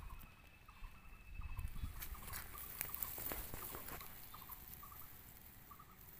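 Short animal calls repeating in little groups of two or three, over outdoor ambience. Between about one and a half and four seconds in there is a stretch of rustling and knocks from the phone camera being handled.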